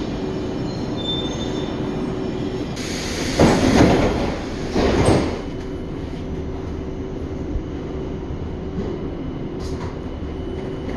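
Old Astra IVA metro train standing at a station, its steady electrical hum running throughout. Two loud, roughly one-second bursts of hissing noise come about three and a half and five seconds in.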